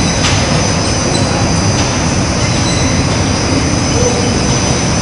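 Industrial textile finishing machinery running steadily: an even, unbroken mechanical noise with thin high whines held above it.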